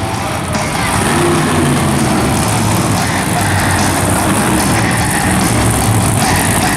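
Monster truck's supercharged V8 engine running loud and steady over arena noise during a two-wheel skills run.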